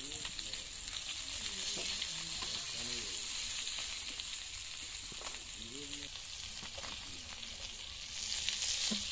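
Hilsa fish pieces sizzling steadily as they fry in hot oil in a karahi, with a few sharp clicks of a metal spatula against the pan as the pieces are turned.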